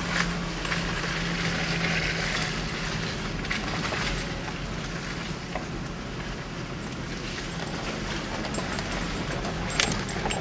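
Nissan Frontier pickup driving over a rough, muddy dirt track: a steady engine drone under tyre and body noise, with scattered knocks and rattles and one sharper knock near the end.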